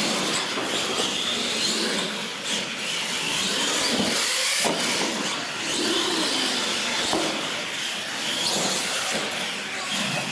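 Radio-controlled monster trucks running on a concrete floor: a steady mix of motor and tyre noise with a strong hiss.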